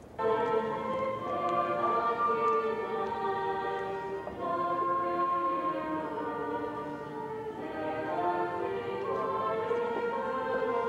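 Choir singing a slow hymn in long held chords. It starts abruptly just after the opening.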